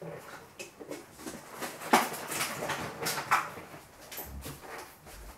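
Scattered knocks and rustles of kitchen things being handled, with a sharper knock about two seconds in.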